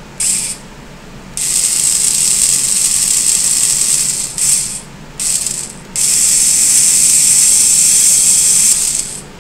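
VEX robot arm's electric motors driving its plastic gear trains, a grinding gear whir in separate moves: a brief one near the start, a run of about three seconds, two short bursts, then another run of about three seconds that stops just before the end.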